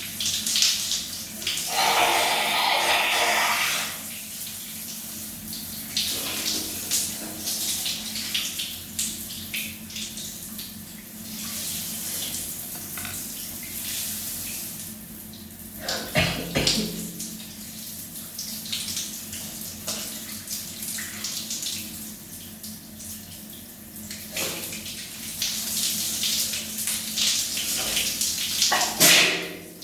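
Shower spray running steadily, louder for a couple of seconds near the start. It is broken by two sudden loud sounds, one about halfway through and the loudest just before the end.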